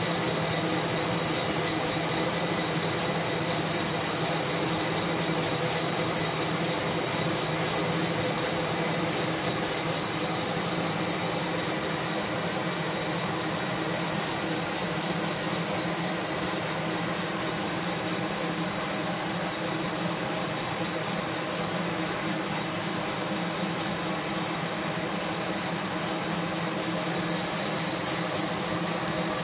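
Fracino Roastilino hot-air coffee roaster running steadily: the blower's even rushing hiss over a low hum, with the coffee beans rattling as they tumble in the glass roasting chamber.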